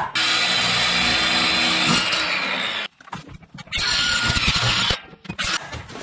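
Circular saw running along a straight-edge guide, cutting a thin sheet: one long run of nearly three seconds that stops abruptly, then a second run of about a second and a brief blip near the end.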